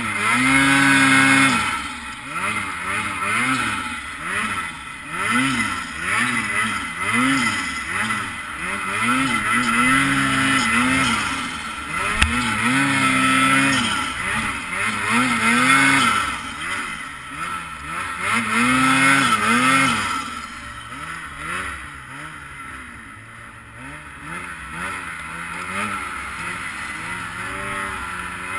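Ski-Doo Freeride 850 snowmobile's two-stroke engine revved up and down over and over as the sled is ridden through powder. About two-thirds of the way in the throttle eases off and the engine runs quieter and steadier.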